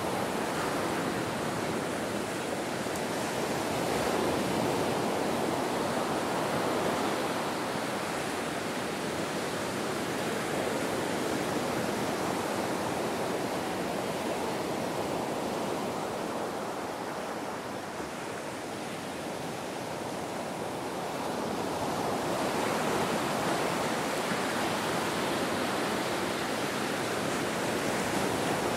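Ocean surf washing onto a beach: a continuous rushing hiss that swells and ebbs slowly, easing off about two-thirds of the way through before building again.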